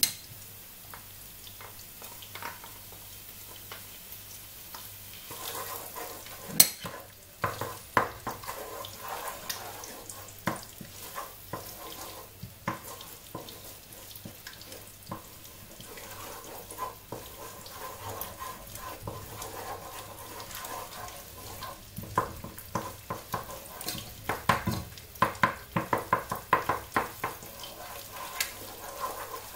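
Onion and tomato paste frying in oil in a pot with a soft steady sizzle, while a wooden spoon stirs and taps against the pot. There is one sharp knock about six and a half seconds in, and the stirring clatters faster in the last few seconds.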